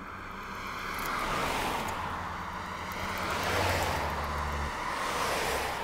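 Passing road traffic: tyre and engine noise swells and fades about three times over a low steady hum.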